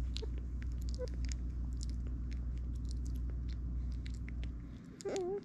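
Newborn German Shepherd puppy's small wet mouth clicks, sucking and working its tongue on a feeding tube, over a steady low hum that fades near the end. A brief wavering voice sounds just before the end.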